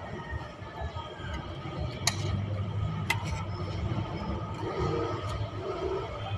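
A spoon clicks against a plate twice, about two and three seconds in, over a steady low rumble of street background.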